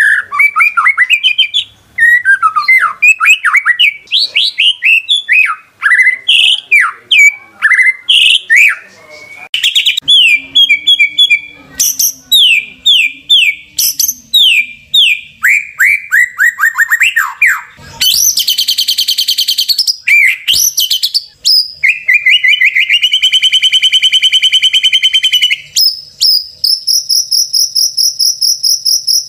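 White-rumped shama singing a fast, varied run of whistled and sweeping phrases, broken by dense buzzing trills after about 18 seconds. From about 26 seconds a steady, shrill, cricket-like pulsing takes over.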